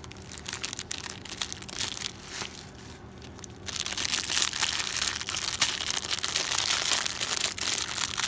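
Thin clear plastic jewelry bag crinkling as it is handled and worked open. It crackles lightly at first, then turns louder and denser about four seconds in.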